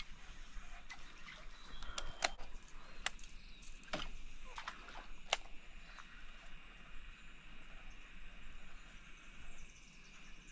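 Quiet creekside bush ambience: a steady faint high hiss with a few short bird chirps, broken by scattered sharp clicks and rustles close to the microphone, mostly in the first half.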